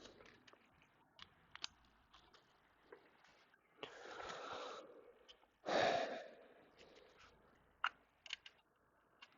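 Faint clicks and light knocks from handling the Acer Revo One mini PC's casing as it is being opened, with two louder hissing noises, one about four seconds in and a sharper one about six seconds in.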